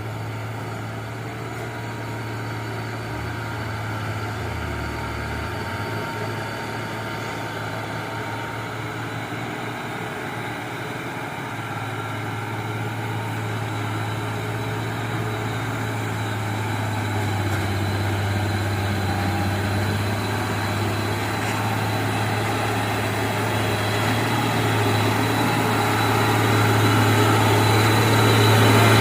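Diesel engine of a heavily loaded truck working steadily on a soft, broken road, growing louder toward the end as the truck comes closer.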